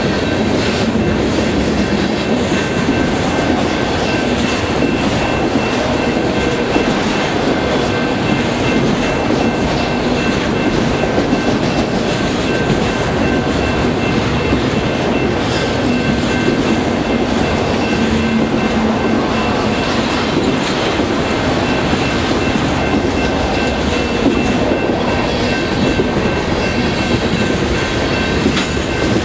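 Freight cars rolling past at trackside: a steady rumble of steel wheels on rail with clickety-clack over the joints, and a faint steady high whine above it.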